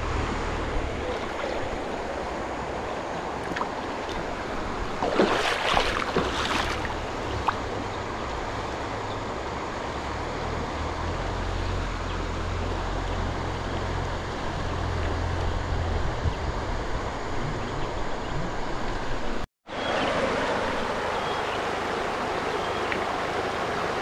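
Steady rush of a shallow river flowing over stones, with wind rumbling and gusting on the microphone. After a short break about three-quarters of the way through, the steady flow of a smaller rocky stream.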